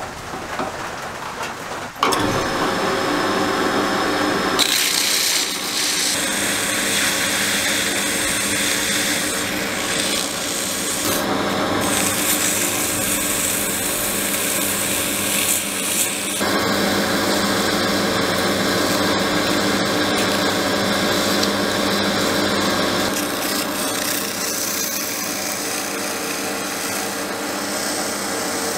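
A drill press motor starts about two seconds in and runs steadily. From about five seconds, sandpaper held against a small metal part spinning in its chuck adds a continuous rasping hiss that shifts in strength as the grip changes.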